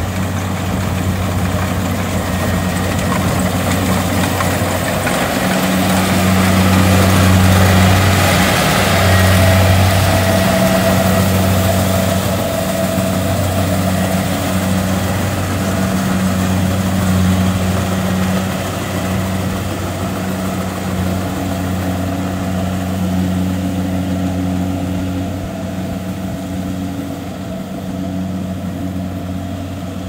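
Kubota DC70 Plus rice combine harvester's diesel engine running steadily as it harvests. It grows louder a few seconds in and fades toward the end as the machine moves away.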